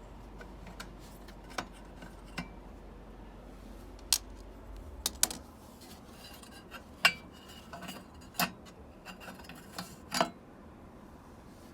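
Irregular sharp metallic clicks and clinks, most of them from about four seconds in: tools and small parts against the metal body of a 1956 Underwood Leader typewriter as a cover plate is taken off.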